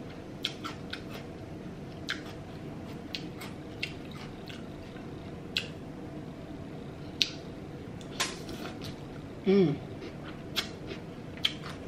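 Close-miked eating of pho rice noodles: wet mouth clicks and smacks scattered throughout, with a couple of short slurps in the second half. A brief hummed "mm" of enjoyment comes about nine and a half seconds in.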